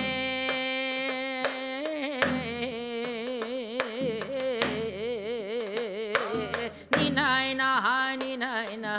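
A male singer sings the 'ninana e~ ninana' refrain of a Gyeonggi minyo (Korean folk song) in long notes with a wide, wavering vibrato. Janggu hourglass-drum strokes accompany him.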